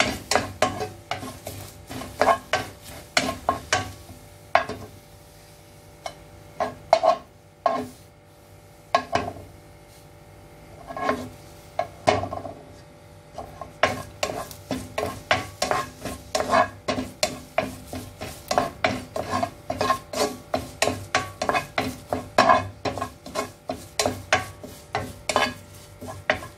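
A spatula stirring and scraping curry leaves around a nonstick wok as they roast, in quick repeated strokes that thin out for several seconds in the middle before picking up again. The leaves are being roasted until they turn crisp and crumble when broken.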